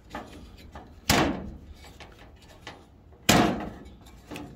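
Wiring connectors being pulled off the clips of a swamp cooler's control board: two sharp clacks about two seconds apart, with lighter clicks and handling noise between them.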